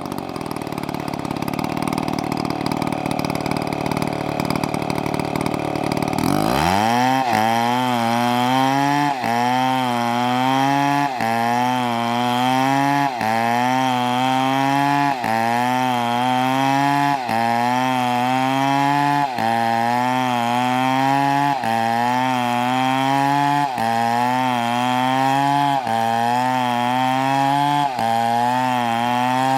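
Chainsaw running hard as it cuts into a tree. For the first six seconds it sounds rough and noisy, then the engine note steadies, its pitch sagging and picking up again about every two seconds as the bar bites and eases in the wood.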